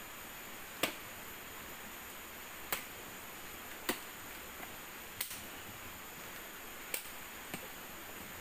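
About seven sharp, short knocks at uneven intervals of one to two seconds: a machete blade striking bamboo as it is cut and split. Under them is a steady hiss of a stream.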